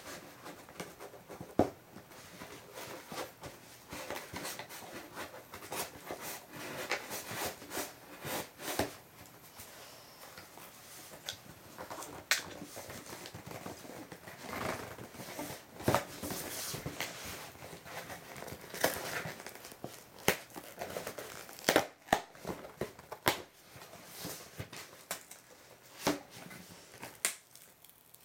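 Scissors cutting into a cardboard shipping box: irregular snips, scrapes and clicks of the blades on tape and cardboard, then cardboard flaps being pulled open.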